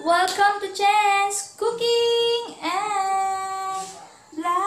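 A song with a high female singing voice holding long notes in several short phrases.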